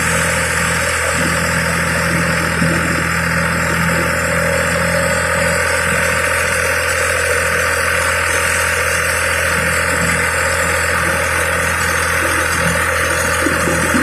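Massey Ferguson 135 tractor engine running steadily as the tractor drives along.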